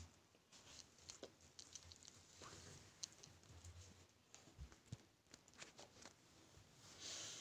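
Near silence: quiet room tone with faint, scattered small clicks and taps.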